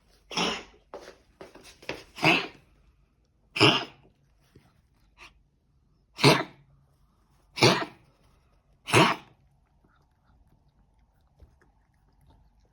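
Repeated short, harsh coughs: six loud ones a second or two apart, with a few weaker coughs between them early on. The coughing stops about three-quarters of the way through. The cough has no known cause.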